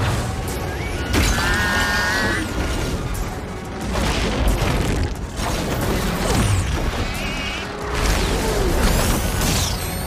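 Cartoon action soundtrack: dramatic music mixed with sound effects of booms, crashes and mechanical clanks, with warbling electronic chirps twice and rising zaps near the end.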